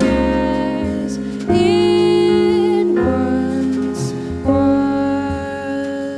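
Small jazz band playing live: a woman sings long held notes over piano, double bass and drums.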